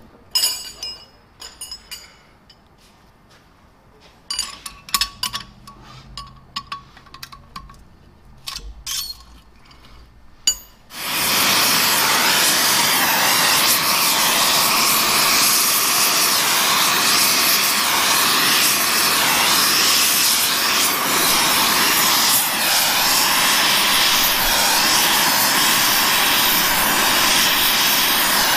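Metal clinking and clattering as bolts and tools are handled on a steel bench. About ten seconds in, an oxyfuel torch is lit with a sharp pop and then runs with a steady, loud hiss while braze-welding the cracked cast-iron pump housing.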